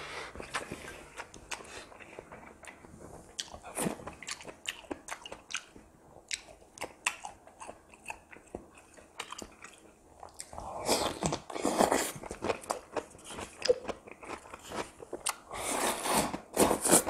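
Close-miked eating: chewing with many small crisp crunches of stuffed cucumber kimchi, and louder slurps of ramen noodles about eleven seconds in and again near the end.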